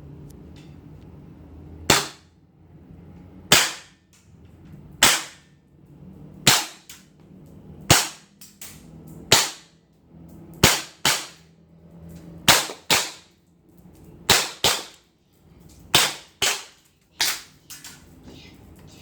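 Gas-powered Desert Eagle replica airsoft pistol firing about fifteen sharp shots, at first singly about every second and a half, then in quick pairs.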